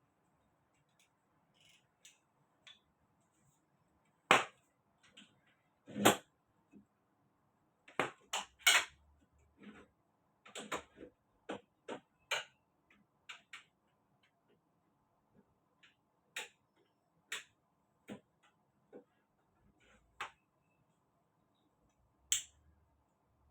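Irregular sharp knocks and clicks of hand-tool work on a door, with quiet gaps between them; the loudest strikes come about four and six seconds in, with a busier run of taps a little later.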